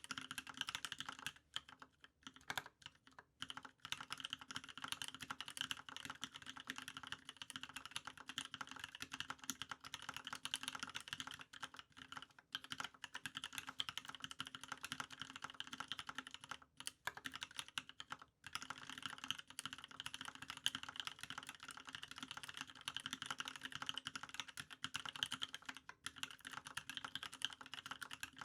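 Fast continuous typing on a custom mechanical keyboard with lubed Cream linear switches on 55 g springs, a brass plate and GMK doubleshot keycaps: a dense run of keystroke clacks with a few short pauses.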